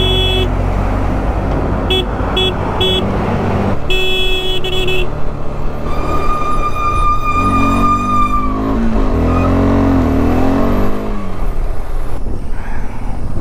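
Vehicle horns honking: several short beeps in the first five seconds, then one long steady horn note from about six to nine seconds in. Underneath, engines run with revs rising and falling.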